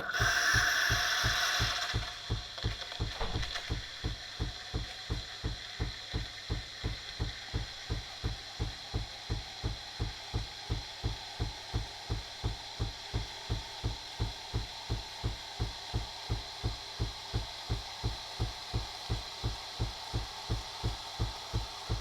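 Philips LatteGo coffee machine running: a louder whirring burst for the first two seconds, then an even pulsing of about two and a half beats a second over a steady hum.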